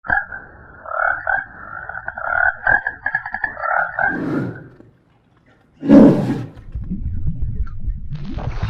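Animal calls: a pulsing call in two pitch bands for about four seconds, then after a short break a loud harsh call followed by low rumbling.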